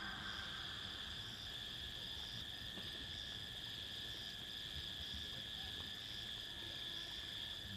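Insects chirring: a steady high-pitched trill, with a second, higher note pulsing about once a second.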